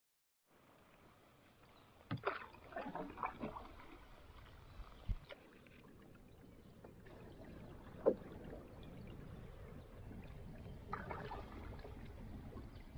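Canoe being paddled on calm water: paddle strokes dipping and splashing, with a few sharp knocks, the loudest about eight seconds in.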